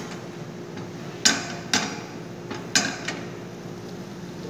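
Three sharp metallic clanks of kitchenware, each ringing briefly, with a couple of lighter knocks between them, over a steady low hum.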